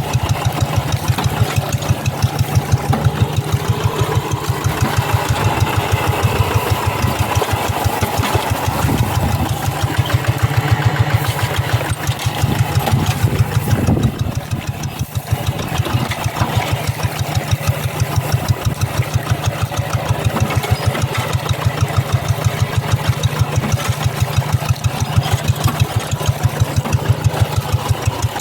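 Single-cylinder diesel engine of a Quick G1000 two-wheel hand tractor running steadily, with an even chugging rhythm of exhaust beats. It eases briefly about halfway through, then carries on.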